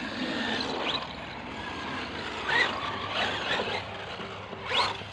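1/10-scale RC monster trucks driving over the humps of a rough track: a steady rush of motors and tyres, with two short rising motor whines as the throttle is opened, about two and a half seconds in and near the end.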